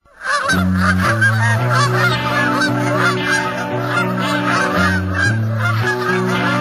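A large flock of geese honking continuously, many overlapping calls, over music with sustained low chords that change every second or so.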